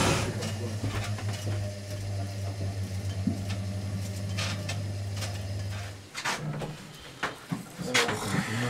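Motorised film-rewinding mechanism running with a steady hum and light rattle, cutting off about six seconds in. After that, a few clicks and knocks of a film reel being handled on the projector.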